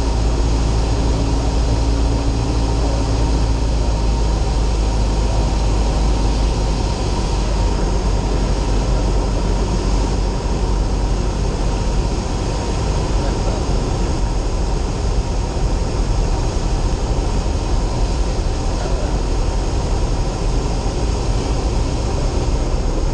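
Light aircraft's piston engine and propeller droning steadily in the cockpit on final approach. The deep low drone eases about seven seconds in as power comes back.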